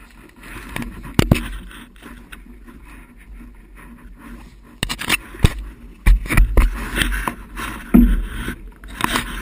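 Wind rumbling on the microphone, with scattered sharp knocks and scrapes from handling the bike and camera.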